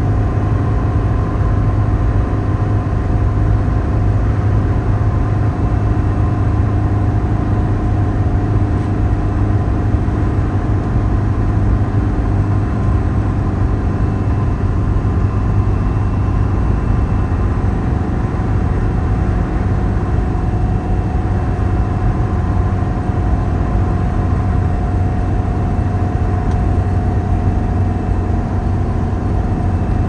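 Steady road and engine noise of a vehicle cruising at motorway speed: an even low rumble with a faint steady hum above it.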